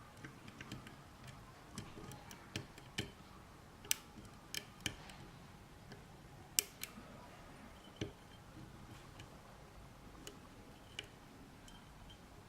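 Lock picks working inside a small Corbin padlock: faint, irregular metallic clicks and ticks, a couple of them sharper, as the pick and tension tool move against the pins.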